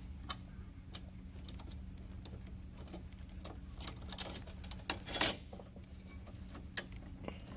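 Small metallic clicks and taps as a bolt and a metal mounting bracket are handled and fitted into place, with one louder metal clack about five seconds in.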